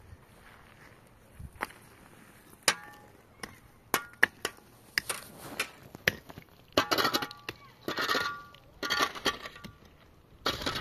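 Scattered sharp clinks and knocks of hard objects being handled, with brief ringing tones in the later half.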